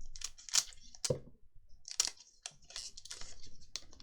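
Foil booster pack and trading cards being handled: a run of crackles and rustles, with a few sharper crinkles, as a pack is opened and its cards are gone through.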